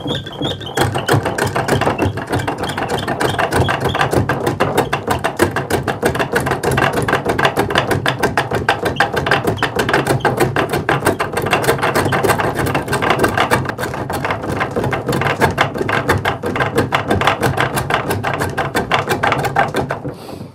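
Treadle-driven spring pole lathe with a hickory spring pole running at speed, turning a wooden stock: a rapid, continuous wooden clatter that starts about a second in and stops just before the end.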